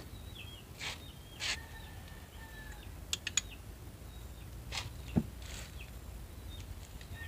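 Scattered metallic clicks and clinks from a socket ratchet wrench and clutch holder tool as the scooter's clutch bell nut is tightened, with one sharper clank about five seconds in. Birds chirp faintly in the background.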